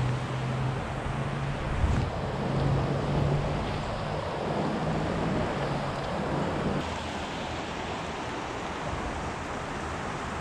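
Creek water rushing steadily over riffles, with a low steady hum under it that stops about seven seconds in.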